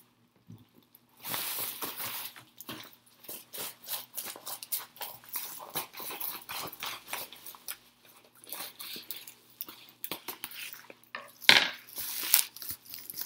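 A package being unwrapped by hand: its wrapping and packing crinkling and crackling in quick irregular bursts, with loud spells about a second in and again near the end.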